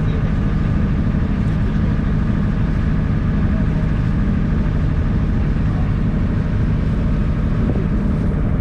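Small excursion boat's engine running steadily under way, a constant low hum heard from on board.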